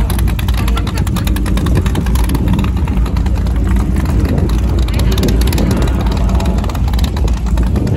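Steady, loud low engine rumble.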